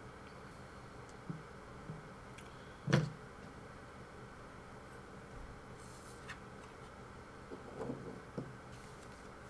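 A few soft knocks and taps of objects handled on a tabletop, the loudest about three seconds in and a small cluster near the end, over a faint steady hiss.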